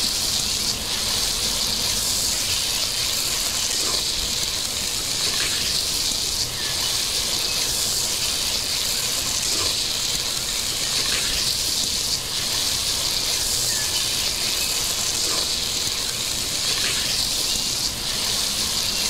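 Chicken curry boiling hard in a clay pot: a steady bubbling hiss, with a few faint knocks spread through it.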